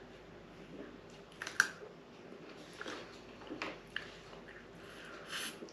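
A raw garlic clove being chewed: a few soft, scattered crunches and wet clicks from the mouth.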